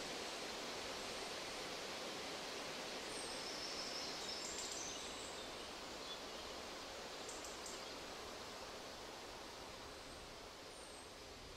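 Soft, steady outdoor hiss, like rustling foliage or distant water, with a few faint, short high bird chirps, slowly fading out.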